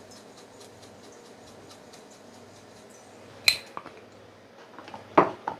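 Dried oregano being crumbled into a bowl, a faint light crackle of small ticks. A single sharp clink comes about three and a half seconds in.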